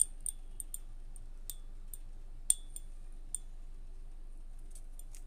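Silica gel beads in a glass of water cracking as they soak up the water: about a dozen small, sharp, irregular ticks, the loudest about two and a half seconds in, thinning out after about three and a half seconds. Cracking on contact with water is what marks the silica gel as genuine.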